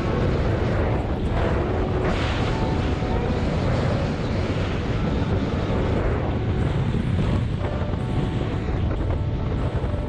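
Arctic Cat snowmobile running at about 40 mph, its engine and track noise steady, with wind buffeting the microphone.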